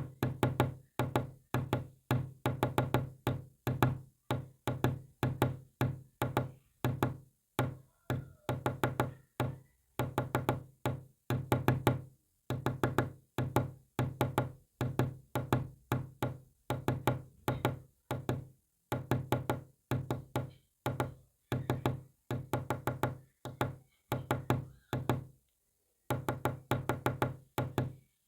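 A Morse code signal made of short, low-pitched knock-like pulses, sent in rapid clusters separated by short gaps, like letters and words.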